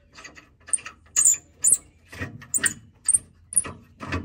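Short squeaks repeated about twice a second as a nut is spun by hand onto the bolt through a new shock absorber's lower mount.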